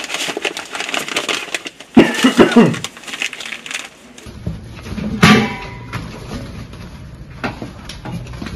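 Rustling and crackling of paper and plastic bags being handled and sorted by gloved hands. There are brief loud voice bursts about two seconds in and again near the middle.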